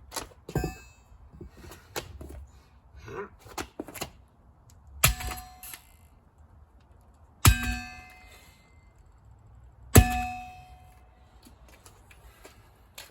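A heavy metal aircraft tailhook is swung down onto a carbon monoxide alarm three times, about two and a half seconds apart. Each blow is a loud clang that rings on briefly, and there are lighter knocks and clatter between the blows.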